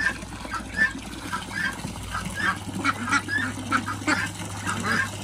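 A flock of young white ducks calling with many short, overlapping high quacks while they splash and drink in a shallow basin with water pouring in.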